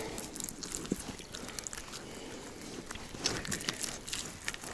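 Faint rustling and small clicks of a wet gill net and a crucian carp being handled as the fish is worked free of the mesh, with a few scattered ticks, more of them near the end.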